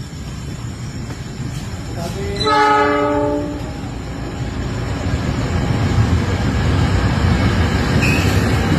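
CC 206 diesel-electric locomotive sounding its horn once, a multi-note chord held for just over a second about two and a half seconds in. Afterwards the rumble of the train grows louder and stays loud.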